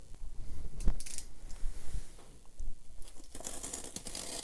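Hands handling a taped cardboard shipping box: a knock about a second in, then scraping and rustling on the cardboard and packing tape, strongest near the end.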